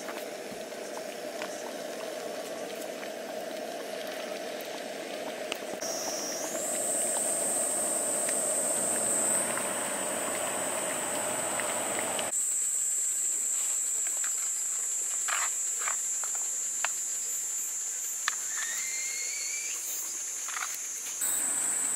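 Gas-canister camping stove burning under a pot of boiling water, a steady hiss and hum that stops abruptly about twelve seconds in. Insects trill at a high, steady pitch from about six seconds on, with a few light clicks and short rising chirps near the end.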